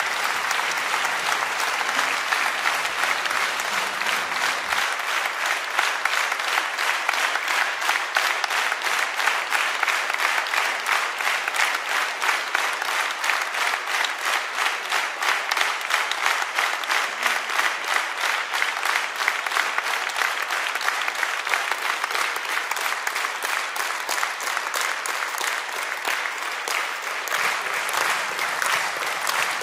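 Large audience applauding, the clapping falling into a steady, even rhythm.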